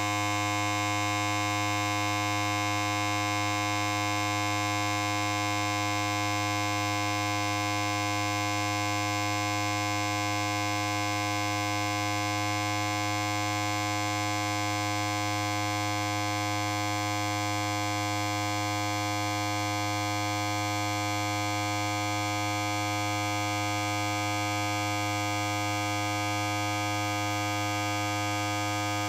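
Electric hair clipper running steadily: a constant buzz with a strong low hum and many overtones, never changing.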